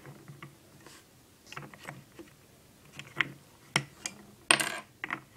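Small plastic clicks and taps from a Lego minifigure being handled and turned on its base plate by hand, with a short louder scrape about four and a half seconds in.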